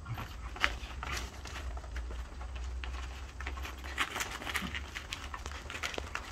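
Two dogs playing on artificial turf: quick scuffling and pattering of paws, with scattered sharp clicks, over a steady low rumble.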